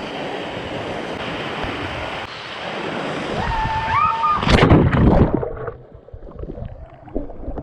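Steady rush of moving water, with a brief whistle-like call and then a loud splashing surge about halfway through, after which the water sound drops away quieter.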